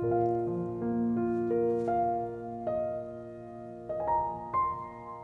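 Slow, soft piano music: a chord struck at the start, then single notes and chords about once a second, each left ringing.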